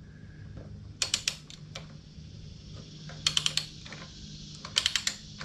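Ratchet wrench clicking in three quick bursts of several clicks each as the handle is swung back on a motorcycle swingarm pivot nut, over a steady low hum. The nut is still running down freely and is not yet tight.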